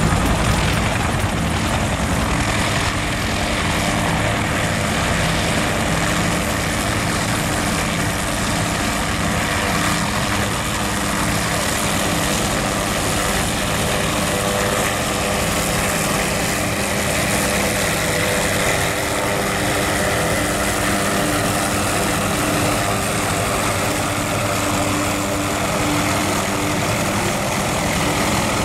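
Kawasaki OH-6D light helicopter's turboshaft engine and rotor running steadily, a dense rotor noise with steady engine tones, as it lifts off into a low hover.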